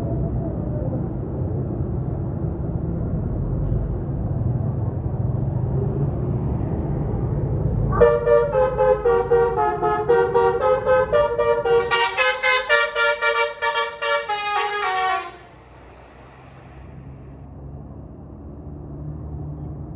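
Tour bus's multi-tone basuri (telolet) horn playing a melody of rapidly pulsing notes for about seven seconds, starting about eight seconds in and cutting off suddenly. Low bus engine rumble comes before it.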